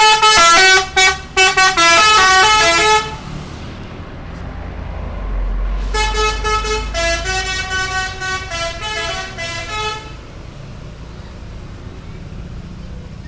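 Telolet multi-tone musical horn on a Mercedes-Benz OH1526 coach playing a rapid tune of stepped notes for about three seconds, then after a pause a second, softer run of notes that ends about ten seconds in. The coach's engine rumbles low underneath, strongest from about five seconds in.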